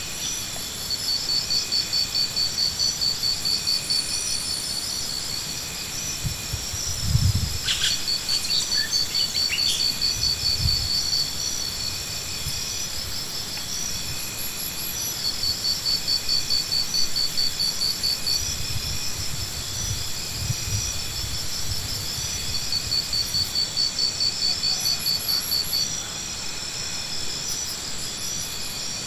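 Insects calling in repeated bouts of a few seconds each: a high, fast-pulsing trill over a steady high whine. A couple of dull knocks sound about a quarter and a third of the way in.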